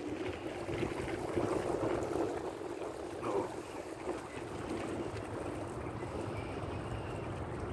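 Steady rushing noise of an electric bike rolling along a gravel trail, tyres on gravel. A brief rising whine a little over three seconds in.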